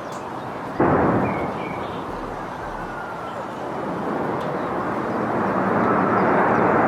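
Airbus A330 jet engines at takeoff power. About a second in the sound jumps suddenly into a loud blast as the right engine fails, then eases off and builds up again.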